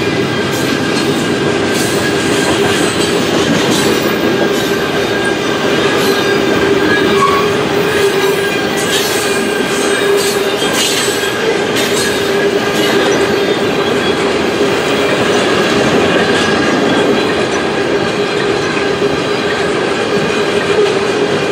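Freight train tank cars rolling past at trackside: a steady rumble of steel wheels on rail with a steady wheel squeal running under it. A run of sharp clicks from the wheels comes through the first half.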